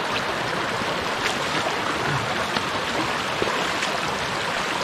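Shallow rocky stream running along an overgrown trail bed: a steady rush of flowing water, with a few faint clicks.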